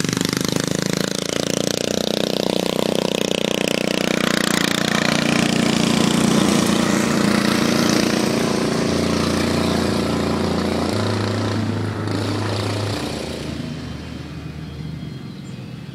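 Racing lawnmower's small newly fitted engine running. It grows a little louder toward the middle, then fades over the last few seconds.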